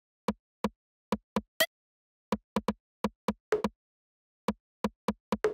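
A series of short, dry knocks in a loose, uneven rhythm, some in quick pairs and triplets, with dead silence between them; one higher, sharper hit about one and a half seconds in.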